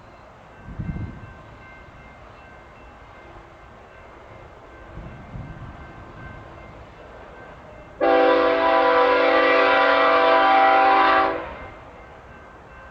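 Diesel locomotive's multi-chime air horn sounding one long blast of about three and a half seconds, a chord of several steady tones that starts suddenly about eight seconds in and fades off.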